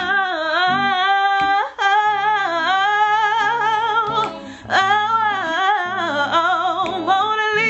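A woman singing long, wavering held notes with heavy vibrato and slides between pitches, a wordless vocal run in an R&B-style ballad, over a soft guitar accompaniment.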